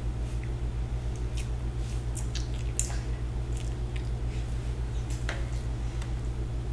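A young child chewing a sandwich, with scattered short mouth clicks and smacks, over a steady low hum.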